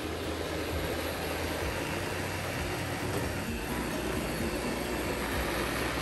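iRobot Roomba robot vacuum running on carpet: a steady noise from its motor and brushes.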